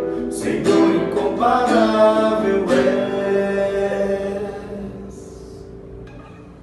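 Acoustic guitar strummed a few times under a sung worship melody, then the final chord rings on and fades away as the song ends.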